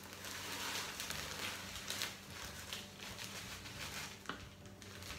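A plastic zip-top bag rustling and crinkling as crushed sandwich-cookie crumbs are shaken out of it into a mixing bowl, with a few light knocks.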